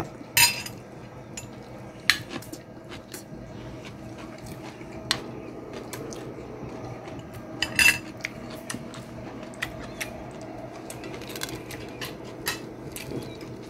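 Tableware clinking: a fork tapping and scraping against a glass bowl and plate in scattered clicks, with two louder clinks about half a second in and about eight seconds in, over a steady low hum.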